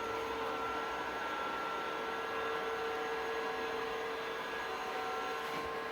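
Multilaser robot vacuum running steadily: an even motor hum with a constant whine.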